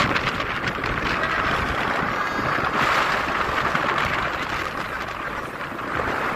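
Wind buffeting the microphone of a moving motorcycle, over the steady run of its engine.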